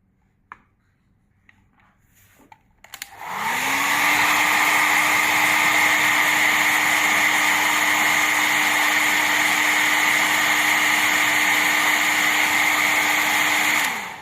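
A small electric fan motor blowing air: it spins up about three seconds in, runs steadily with a loud rushing sound for about ten seconds, then spins down and stops near the end.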